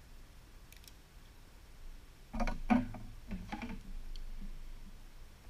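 Scissors snipping a strip of Velcro: a few quick crisp snips a little over two seconds in, after a quiet start.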